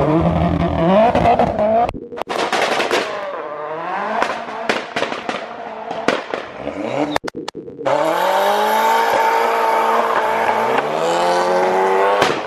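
Modified cars, among them a Vauxhall Astra and a Skoda Octavia, pulling away hard: engines revving up and down with gear changes and a run of sharp exhaust pops and crackles, then one engine revved up and held high for about four seconds near the end.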